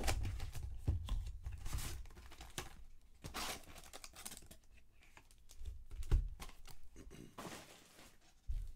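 Hands opening a Topps Chrome trading-card box and handling its foil card packs: a run of light taps, clicks and rustles, with two longer crinkling rasps about three and a half and seven and a half seconds in.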